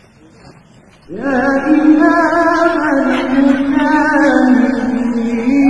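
A voice singing long, held notes with a wavering vibrato. It begins with an upward slide about a second in, after a brief quiet moment.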